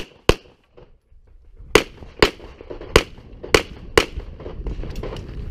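Handgun shots in a string: one right at the start, then after a pause of about a second and a half, five more about half a second apart. A low, steady rustling noise builds near the end.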